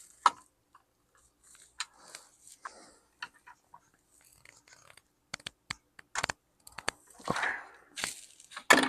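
Scattered small clicks and scraping from the plastic and metal parts of a Lenovo T430 laptop being handled and pried at during disassembly, with the loudest click near the end.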